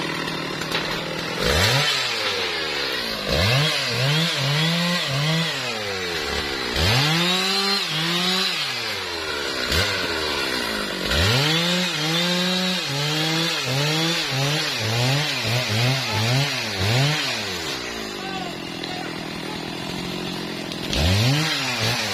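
Stihl MS 660 two-stroke chainsaw revved up from idle and let back down about five times. During the longer runs the pitch wavers and dips as the chain cuts into wood.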